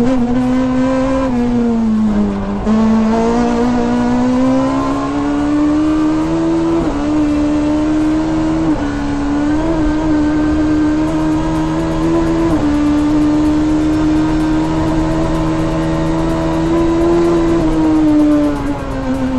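Rally car engine held at high revs through a stage, with several gear changes and brief dips in pitch as it lifts and picks up again, the revs falling away near the end.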